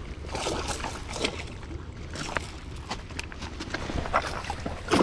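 Irregular splashing of a hooked zander thrashing at the water's surface in the shallows as it is brought to a landing net, in several separate bursts.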